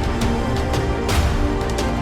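Background music: sustained notes with a swelling cymbal-like swish that recurs about every second and a half.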